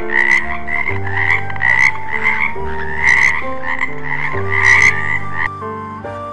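Frog croaking over and over in quick rough pulses, over soft background music; the croaking stops shortly before the end.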